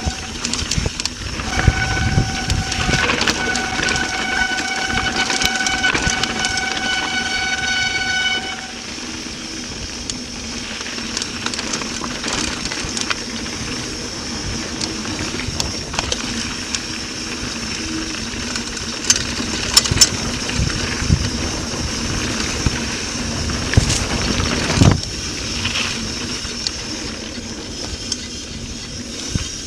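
Bicycle brakes squealing in one steady high-pitched tone for about seven seconds while braking down a steep dirt descent, then cutting off suddenly. After that comes the rattle and rumble of a mountain bike rolling over the rough trail, with a few sharp knocks from bumps.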